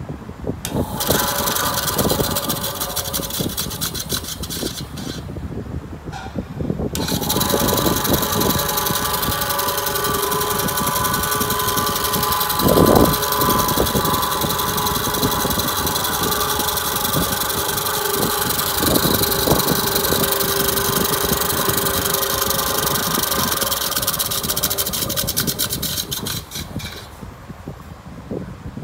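Small EZYLIF benchtop bandsaw running with no workpiece: its motor and blade start about a second in and dip briefly around five seconds. It then runs steadily with one knock partway through and dies away near the end.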